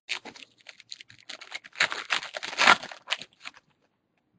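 Foil wrapper of a Bowman baseball-card pack being torn open and crinkled, a dense crackle that builds to its loudest in the middle and stops about three and a half seconds in.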